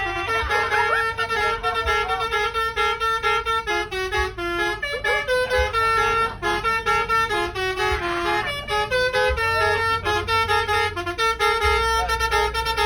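A bus's telolet basuri horn, a multi-note musical horn, playing a tune note by note in reedy, brassy tones. A low rumble sits underneath, strongest near the end.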